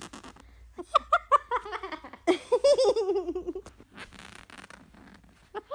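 Umbrella cockatoo laughing in a quick run of bouncing, giggle-like bursts, set off by fingernails scratching along a bedsheet. The rasp of the scratching is heard at the start and again after the laughter.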